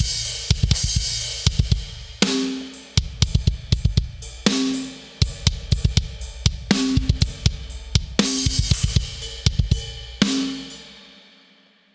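FXpansion BFD3 sampled drum kit playing a groove of kick, snare, hi-hat and crash cymbals, run through UAD's API console emulation with a drums preset. About ten seconds in, a final hit lets its cymbal ring out and fade away.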